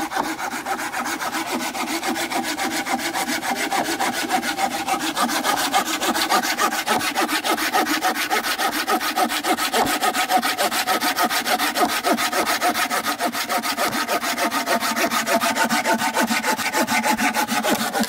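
Hand saw cutting through a fairly thick log with quick, regular back-and-forth rasping strokes, the teeth biting well into the wood. The sawing stops suddenly near the end, as the piece is cut through.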